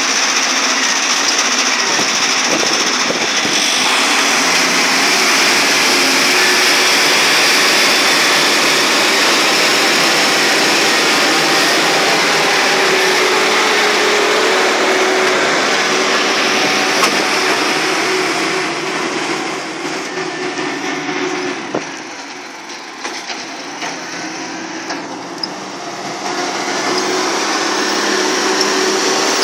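International 530 excavator's engine running hard while working, with a faint steady whine over it. It eases off for several seconds about two-thirds of the way through, then picks up again.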